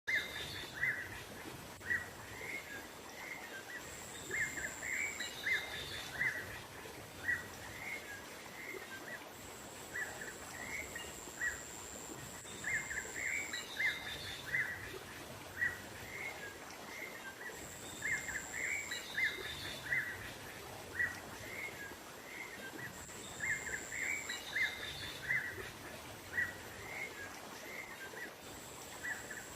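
Small songbirds giving quick, short chirps in clusters, over a steady hiss of outdoor nature ambience, with a thin high steady tone that comes and goes every few seconds. It is a bird-lure (pikat) recording, meant to call small wild birds in.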